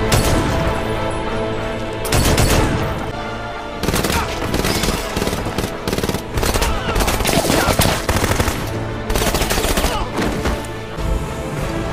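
Movie soundtrack gunfire: single shots and rapid bursts of automatic fire over a tense music score, with heavier hits about two seconds in and again near nine seconds.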